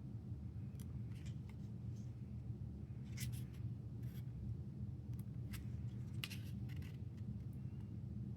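Glossy photo book pages being handled and turned: scattered soft paper rustles and clicks over a low steady hum.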